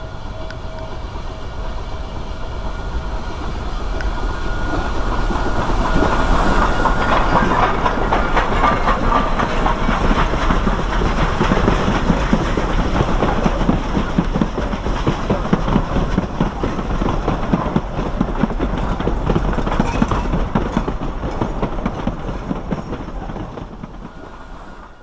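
Durango and Silverton steam train rolling past, its wheels clacking over the rail joints. The sound swells over the first several seconds, holds steady, then fades near the end.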